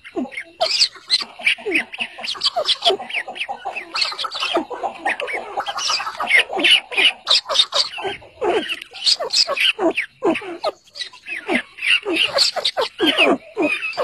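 Partridge chicks and their hen chirping and calling nonstop: many short, overlapping calls, a lot of them sliding down in pitch.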